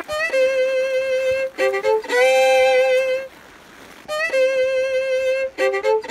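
Background music: a solo violin melody, long held notes with vibrato between quick runs of short notes, with a short break about halfway.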